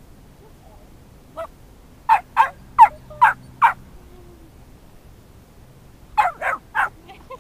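Puppy barking in short, sharp, high yaps: a single yap, then a quick run of five at about two to three a second, then three more near the end.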